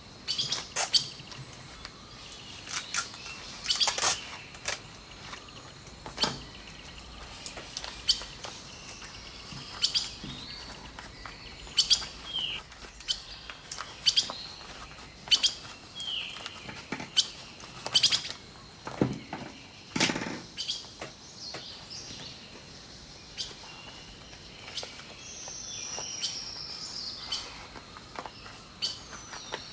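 Birds chirping and singing, short repeated calls and brief gliding notes, with scattered sharp clicks among them.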